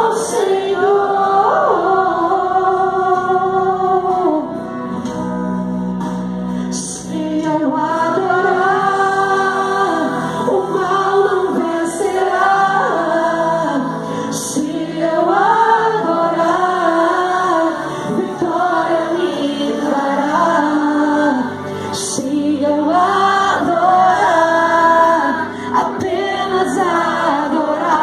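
A woman singing a worship hymn into a handheld microphone, with long held notes that slide between pitches and short breaths between phrases.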